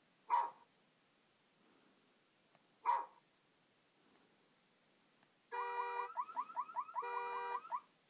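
Two short, sharp sounds about two and a half seconds apart, then a car alarm sound effect played from a phone app: a steady electronic tone, a fast run of falling chirps, then the steady tone again, cutting off near the end.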